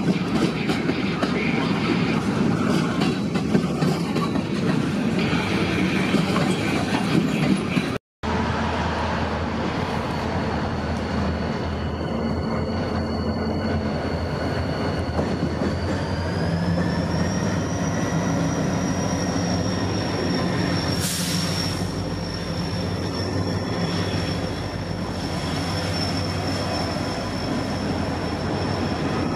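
CSX diesel freight train passing close, with a dense clatter of wheels on rail. After a cut, diesel locomotives rumble past below with a thin, steady, high-pitched wheel squeal that steps up slightly in pitch, and there is a short hiss about two-thirds of the way through.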